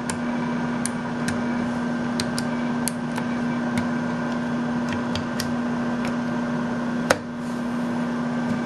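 Incoterm SPD 10/20 computer running just after power-up, its cooling fan and disk drives making a steady electrical hum. Scattered light clicks of its front-panel drive buttons being pressed, with one louder click about seven seconds in, after which the hum briefly dips.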